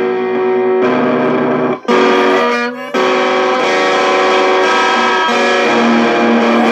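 Electric guitar, a Squier Super Strat played through an Orange Micro Terror's valve preamp, with chords struck and left to ring. There is a short break just before two seconds in, then a long held chord from about three seconds.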